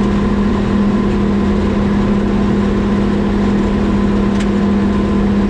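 Tractor engine running steadily while towing a baler at road speed: an unbroken drone with a strong low hum.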